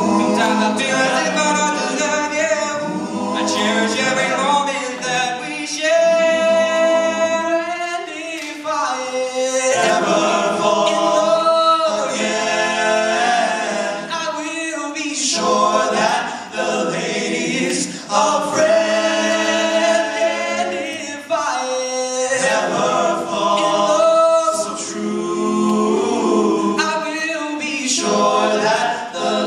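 Male vocal group singing in close harmony into handheld microphones, amplified over a PA, with long held chords in places.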